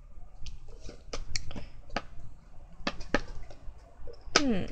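Scattered sharp clicks and taps of a CD album's photobook and cardboard box being handled and set back in the box, with a short falling vocal sound near the end.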